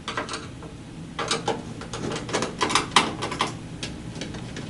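Sheet-metal side panel of a desktop computer case being worked loose and slid off, a run of irregular metallic clicks, rattles and scrapes, busiest in the middle.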